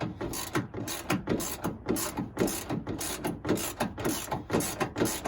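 Ratchet with a 7/16 socket on an extension, clicking over and over as it turns a washer-reservoir mounting bolt.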